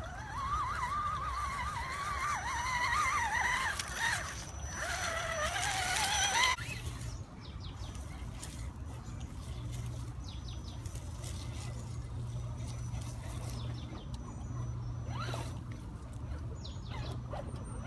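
Axial Wrangler RC crawler's electric motor and gearbox whining, the pitch wavering up and down with the throttle. About six and a half seconds in the sound changes to a steadier low drivetrain hum that cuts out briefly and comes back, with scattered clicks from the tyres over leaves and sticks.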